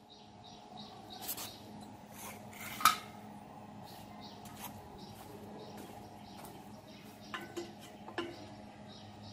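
Steel tubing being handled and set against a welded steel frame: a few sharp metal clinks and knocks, the loudest about three seconds in and a small cluster near the end, over a steady low hum.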